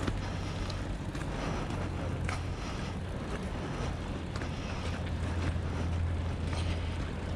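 Ducati motorcycle engine running as the bike rolls slowly at low revs, a steady low hum that grows a little louder about five seconds in.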